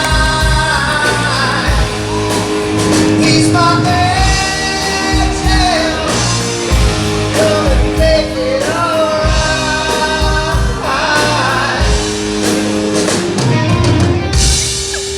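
A rock song with a lead singer and a drum beat, played loud as walk-on music for a guest's entrance.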